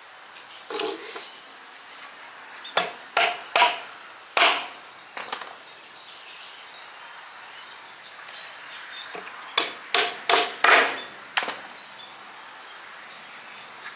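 Hammer striking nails into the wooden planks of a bench: two runs of about five or six sharp blows with a pause between.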